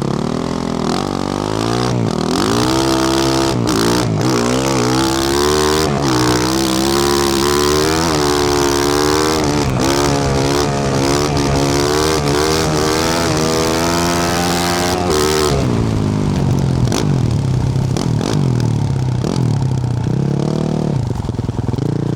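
2024 Yamaha YZ450F's 450 cc single-cylinder four-stroke engine, fitted with a Yoshimura RS-12 exhaust, revving hard in repeated rising pulls with brief breaks between them. About two-thirds of the way through it drops to lower, unsteady revs.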